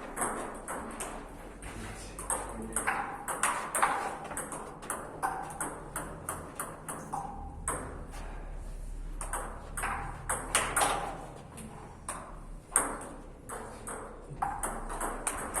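Table tennis rally: the celluloid ball clicking off rubber-faced paddles and bouncing on the table, many quick sharp ticks in an uneven run, several a second, with a short ring in the hall after some.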